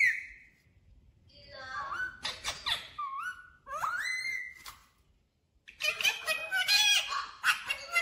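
Indian ringneck parakeets calling and chattering: a run of gliding, whistled notes, a short pause, then denser, speech-like chatter near the end, typical of a talking ringneck's mimicry.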